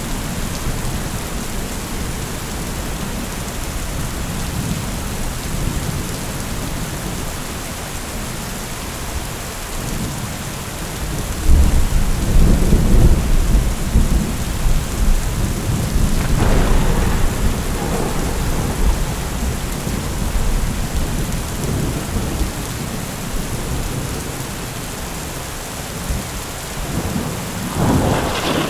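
Heavy rain falling steadily throughout. A long, low thunder rumble builds about a third of the way in and crackles for several seconds, and a sharper thunderclap comes near the end.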